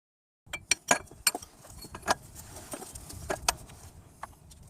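Hand tools working on metal fittings: irregular sharp metallic clicks and clinks, some eight in all, starting about half a second in after a cut.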